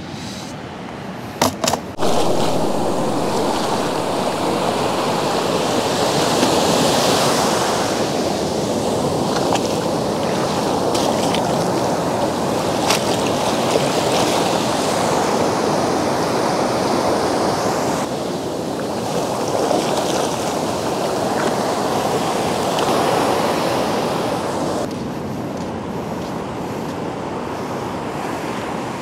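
Ocean surf washing up the beach, a steady rush that swells and eases every few seconds, with a couple of sharp clicks just before it starts.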